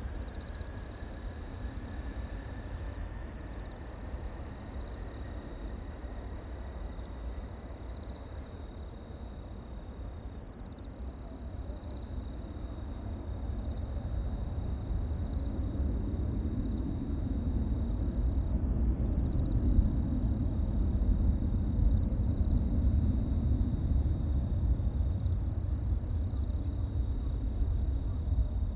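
Twin-engine jet airliner taking off: a thin engine whine rising slowly in pitch during the takeoff roll, over a deep jet rumble that swells to its loudest about two-thirds of the way through as the plane climbs away.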